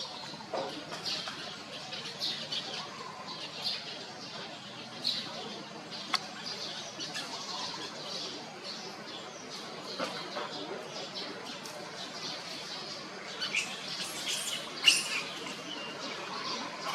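Short high-pitched animal squeaks and chirps repeated every second or so, thickest and loudest near the end, with a couple of sharp clicks.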